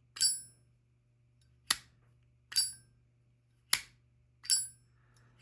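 Zippo lighter lid flicked open and snapped shut three times, the classic Zippo click: a ringing metallic ping and a sharp click in turn, about a second apart.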